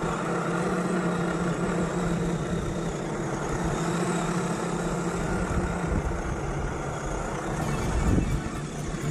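Radio-controlled scale crawler pickup on a Boomracing Defender 110 chassis driving through sand, giving a steady engine-like hum. A short, louder low rumble comes about eight seconds in.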